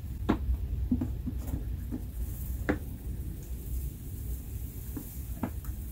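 A few scattered soft clicks and taps from handling the telescope's GoTo hand controller while centering a star, over a low steady outdoor rumble.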